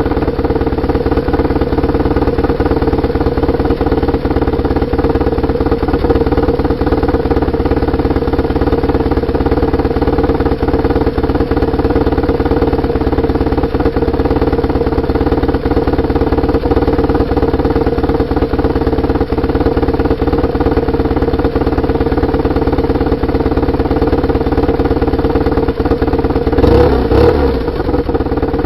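BMW R850R's air/oil-cooled boxer twin engine running at steady throttle while the motorcycle cruises, heard from just above the exhaust. The engine note holds steady over a dense low rumble, with a brief louder change in pitch near the end.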